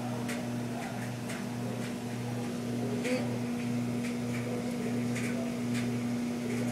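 Microwave oven running with a steady low hum, a few faint ticks over it.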